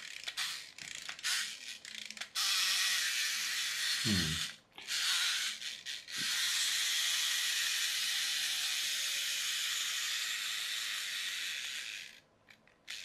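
Clockwork spring motor of a McDonald's Happy Meal Marvin the Martian toy: a run of ratcheting clicks as it is wound, then a steady whirr with two short breaks that runs for several seconds until it runs down and cuts off abruptly near the end.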